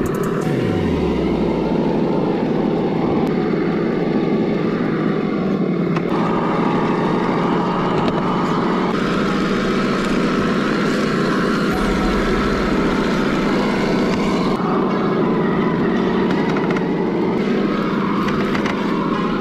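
Traxxas TRX-4 Sport RC crawler on Traxx track units driving over leaves and stones: a steady hum from its Hobbywing AXE brushless motor and gearing, mixed with the tracks rustling and grinding over the ground.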